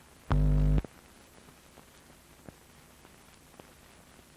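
A loud low buzz lasting about half a second, then a steady faint hiss with a few faint clicks: the optical soundtrack of old film leader running before the picture starts.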